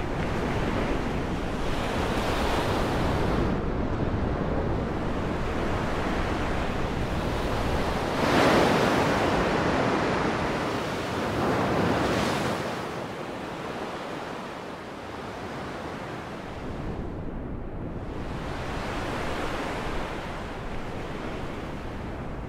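Small waves breaking and washing up on a sandy beach, with wind rumbling on the microphone. The surf swells loudest about eight and twelve seconds in.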